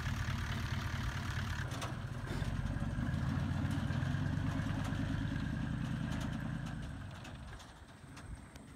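A farm ute's engine idling, then pulling away. The engine gets louder about two seconds in and fades into the distance over the last couple of seconds.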